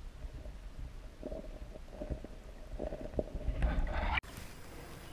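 Muffled underwater sound from a camera submerged in a brook: low rumbling and gurgling with a few soft knocks, building to a louder rush that cuts off abruptly about four seconds in. After the cut come faint stream-side outdoor sounds.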